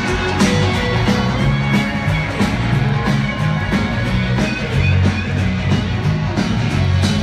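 Live country band playing over a stadium PA, heard from far back in the crowd: an electric guitar takes the lead in an instrumental passage over bass and drums with a steady beat.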